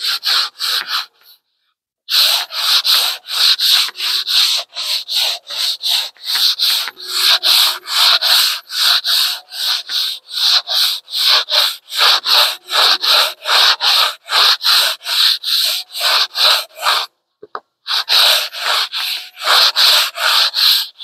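Hand sanding with a sandpaper-covered sponge block: quick back-and-forth scratchy strokes, about three a second, stopping briefly twice, once about a second in and once about three-quarters of the way through.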